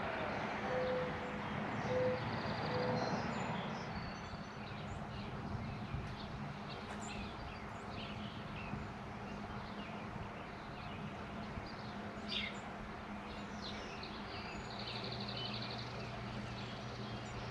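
Outdoor ambience: small birds chirping here and there at a distance over a steady low hum. Three short low notes about a second apart sound in the first few seconds, and a fast buzzy trill comes near the end.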